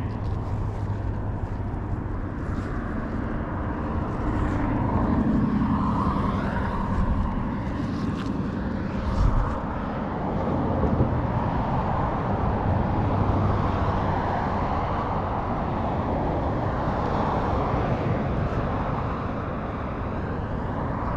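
Engine noise from passing vehicles over a steady outdoor rumble, swelling about five seconds in and again around thirteen seconds. There is a single low thump about nine seconds in.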